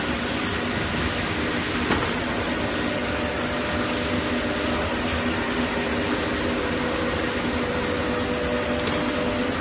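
Steady hum of running factory machinery: an even noise with several steady tones in it, and a single faint click about two seconds in.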